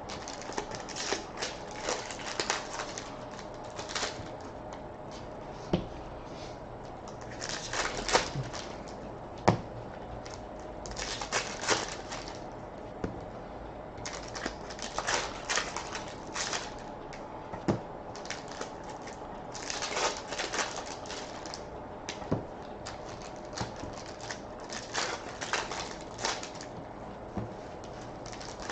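Trading cards being handled and flipped through: irregular clusters of light clicks and rustling, with a few sharper snaps.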